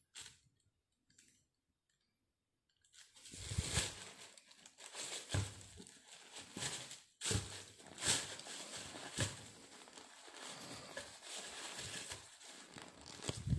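Tissue paper crinkling and rustling as shoes are moved about inside a cardboard shoebox, starting about three seconds in, with a few soft knocks.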